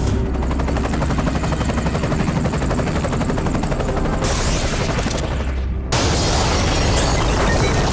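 Sound effects for an animated Hellfire missile strike: a helicopter's rotor beating in fast, steady pulses, with a high hiss joining briefly about four seconds in. About six seconds in, the missile explodes, giving a louder, sustained blast and rumble.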